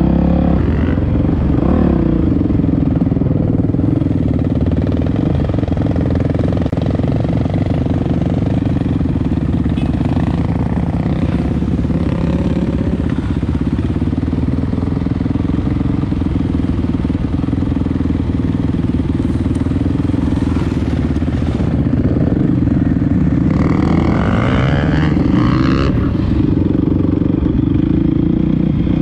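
Dirt bike engine running steadily under way, with the revs rising and falling a few times near the end.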